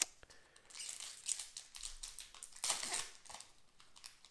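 Crinkling and rustling of Magic: The Gathering booster packaging and cards being handled, in two short bursts about one second in and about three seconds in.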